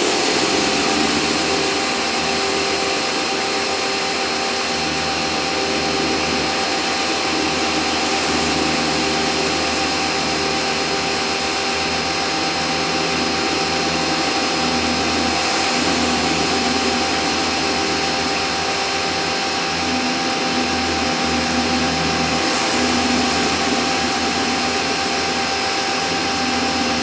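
Sun Joe pressure washer running steadily while a 13-inch rotating surface cleaner sprays water across a driveway. A constant machine whine sits over the hiss of the spray.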